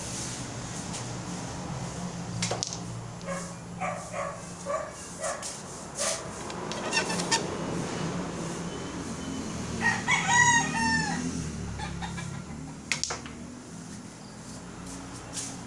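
A rooster crows once, about ten seconds in, the loudest sound. A few sharp clicks of small billiard balls striking each other on a mini pool table come before and after it.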